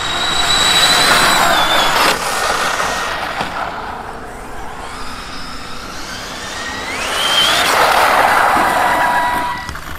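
ZD Racing EX07 1/7-scale electric RC supercar at speed, its brushless motor whining high over a wide rushing noise. The sound is loud about a second in and ends with a sharp click at about two seconds. A steeply rising whine a few seconds later marks hard acceleration, and the car is loud again until near the end.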